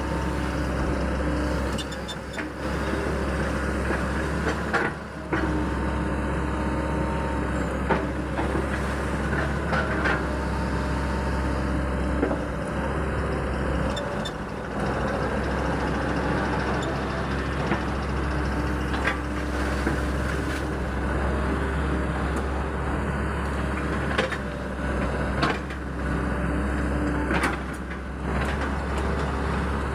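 Hydraulic excavator's diesel engine running steadily while it digs, with occasional sharp clanks and knocks.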